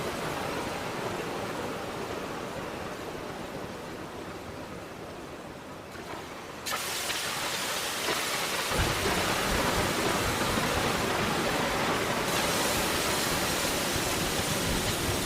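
Electronic noise-texture sound effect: a rain-like hiss that slowly fades, then switches abruptly to a louder, brighter hiss about a third of the way in. A low rumble joins about two seconds later, and the top end brightens again near the end.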